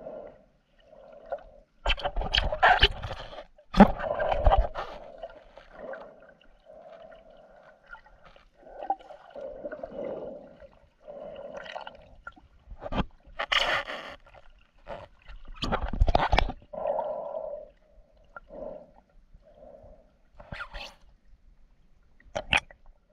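Muffled underwater gurgling and bubbling, heard through an action camera's waterproof housing held just below the surface. Several louder rushes and knocks of water break in along the way.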